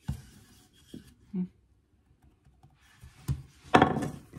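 Light knocks and rubbing from a wooden rolling pin and hands working a sheet of yeast dough on a wooden worktop, with a louder scuffing rub about four seconds in.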